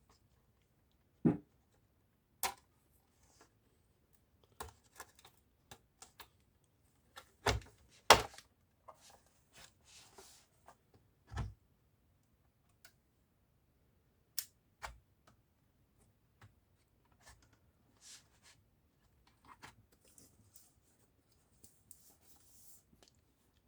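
Irregular clicks, taps and light knocks of laptop parts being handled during disassembly, with a few louder knocks and short scrapes.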